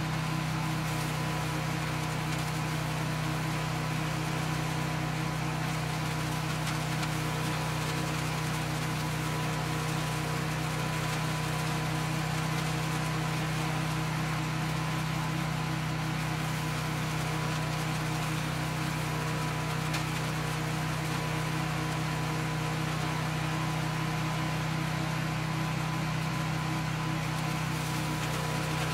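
Cast-iron Kohler K341 single-cylinder engine of a 1973 Allis Chalmers 416 garden tractor running steadily at a constant speed, driving the composter attachment.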